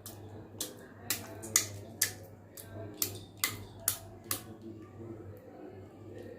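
A series of about eight sharp clicks or taps, roughly half a second apart, over the first four and a half seconds, above a steady low hum.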